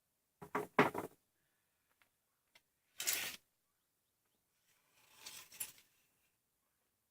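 A few brief handling noises: a cluster of sharp knocks near the start, one louder short scrape or clatter about three seconds in, and a softer rustling scrape around five seconds.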